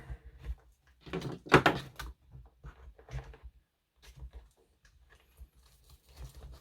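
Handling noise of hand tools being pushed into the fabric loops of a tool bag: irregular rustles, scrapes and light knocks, the loudest about a second and a half in, with a short break about four seconds in.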